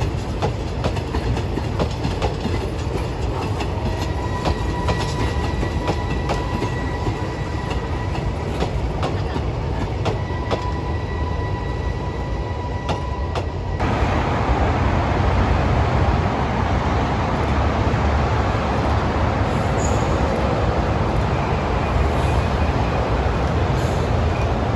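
Passenger train coaches rolling past on the rails, the wheels clicking over rail joints with a faint steady squeal. About 14 s in, the sound changes suddenly to a louder, steady rushing noise.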